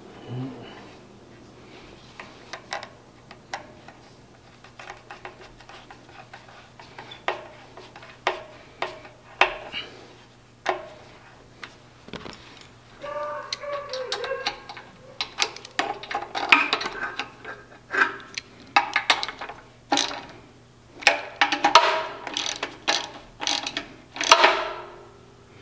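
Hand tools and metal parts clicking, clinking and knocking as an air compressor's regulator fitting is reassembled; the strikes are irregular, sparse at first and busier and louder in the second half, some ringing briefly.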